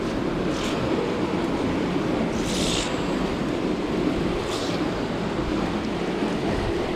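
Steady wind rumble on the camera microphone, with three brief hissing swishes about two seconds apart as a wet magnet-fishing rope is hauled up hand over hand.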